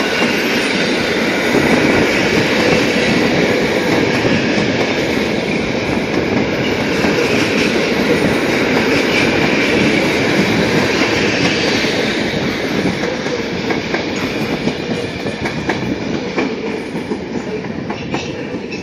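PKP Intercity passenger coaches rolling past on the track, a steady rumble and hiss of wheels on rail. It fades over the last few seconds as the end of the train moves away, with a scatter of wheel clicks over the rail joints.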